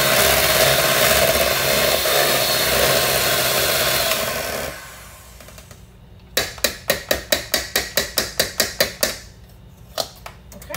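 Electric hand mixer running steadily as it creams a cream cheese, sugar and egg mixture, switching off about four and a half seconds in. Then about fourteen quick taps, some five a second, as the beaters are knocked against the rim of the metal bowl to shake off the mixture, and two more taps near the end.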